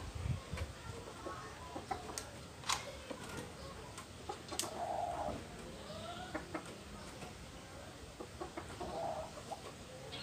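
Scissors snipping chili pepper stems, a few sharp clicks, with chicken-like clucking in the background about halfway through and again near the end.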